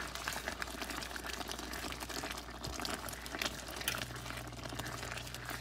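Tomato-based Creole sauce simmering in a pan, bubbling with many small pops as it is stirred with a silicone spoon.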